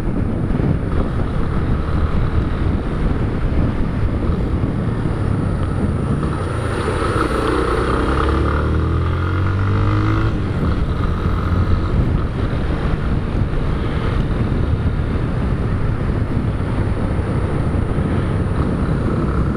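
Yamaha motorcycle engine running while riding, with rushing air noise. About six seconds in, the engine revs up, rising in pitch for a few seconds, then drops back a little before halfway.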